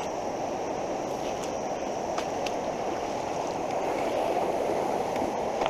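Fast-flowing flooded creek water rushing steadily, with a few faint knocks.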